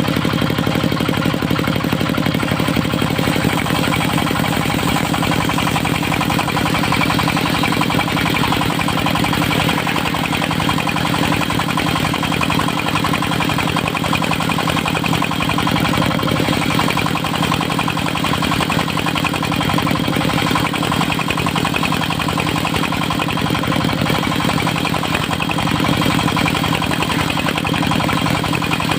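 The engine of a portable circular sawmill running steadily under a constant load, with no pauses or changes.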